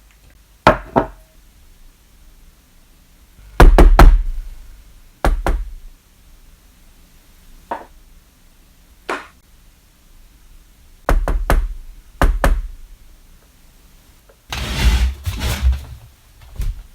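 Knocking on a door in irregular groups of sharp knocks, two, then three, then single ones spaced a few seconds apart, followed near the end by a longer, rougher noise about two seconds long.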